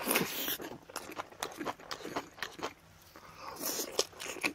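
A man eating: slurping and chewing mouthfuls of aged kimchi and pork from gukbap, in irregular wet smacks and crunches, loudest near the start and again about four seconds in.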